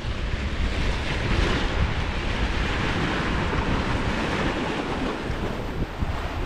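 Wind buffeting the microphone over sea waves washing against rocks. The low rumble and broad hiss run steadily, swelling slightly in the middle.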